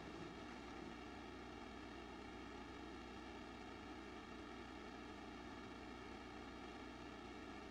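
Faint steady hiss with a low electrical hum: room tone.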